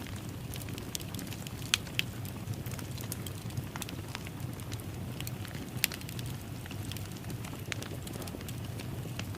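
Wood fire crackling in a fireplace: a steady low rumble of flame under scattered sharp pops and snaps, the loudest about two seconds in and again near six seconds.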